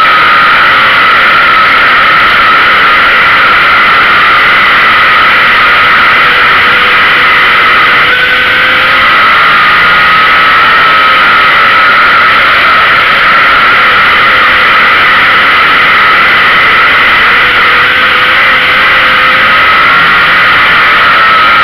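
Street stock dirt-track race car's engine running hard at racing speed, loud and continuous, its pitch dipping and climbing again every several seconds.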